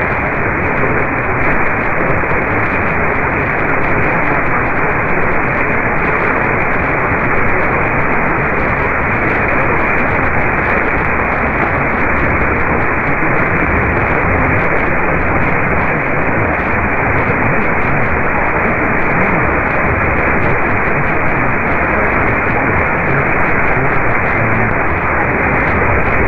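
Steady, loud static hiss from a software-defined radio receiver tuned to an AM broadcast frequency, with no program audio coming through.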